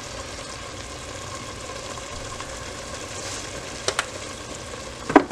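Dove breast meat frying in hot oil in a pot, with a steady sizzle. A wooden spoon stirs it and knocks sharply against the pot once about four seconds in and twice near the end.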